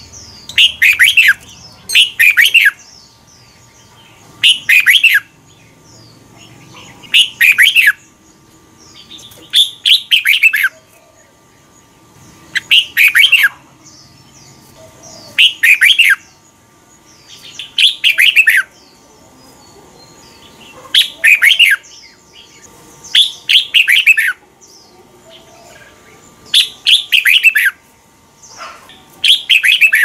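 Red-whiskered bulbul singing: loud, short phrases of quick rising and falling notes, repeated about every two and a half seconds, many of them doubled.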